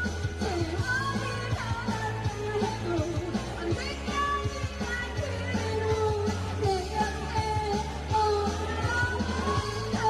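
A singer performing a Korean pop song over accompaniment with a steady bass line and drum beat.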